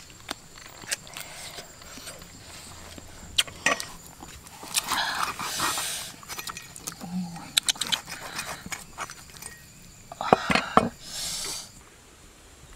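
Close-up eating sounds of people eating grilled fish with their fingers: sharp lip smacks and mouth clicks, with two louder, longer noisy stretches of chewing and tearing about five and ten seconds in.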